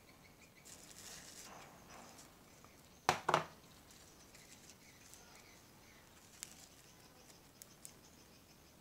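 Slime with small foam beads being handled: a soft rustle, then a sharp sticky crackle about three seconds in as it is pulled and stretched, and a few small pops and clicks near the end as it is pressed into the bowl.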